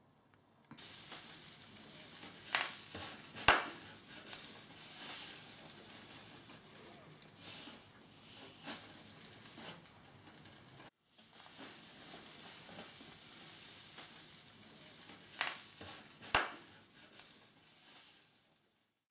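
A thin wooden cello rib being bent against a hot bending iron under a metal strap: a steady sizzling hiss of steam from the heated wood, with a few sharp clicks. The hiss breaks off briefly about eleven seconds in and then resumes.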